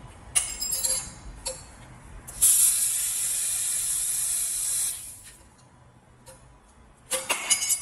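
1500 W handheld laser welder in cutting mode, cutting a thin metal sheet: a loud, steady hiss of the gas jet and spatter lasting about two and a half seconds. Short metallic clinks come in the first second and again near the end.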